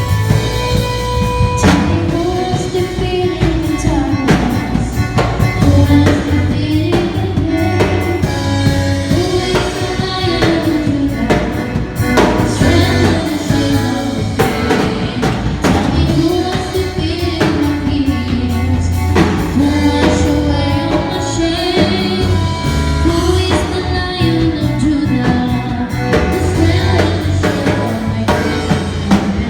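Live band with a drum kit and bass playing a worship song, with a voice singing the melody over it.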